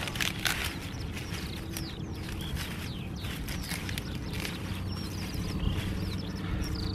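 Small birds chirping with many short, falling calls. Leafy puha (sow thistle) stems rustle as the bundle is handled in the first second and a couple of times later.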